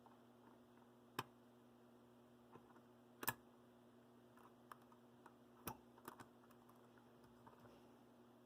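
Near silence broken by a few faint, scattered clicks and taps of small tools and metal parts being handled while a model locomotive is taken apart, the loudest about three seconds in.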